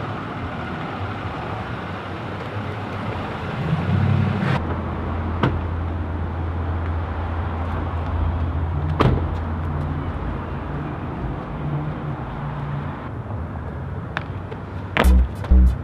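A car engine running with a steady low hum, with a couple of sharp clicks; a pounding electronic beat starts near the end.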